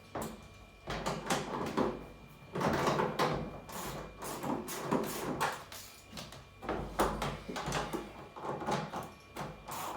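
Irregular knocks, scrapes and clatter of hand work on washing machine parts, coming in uneven bursts with short pauses.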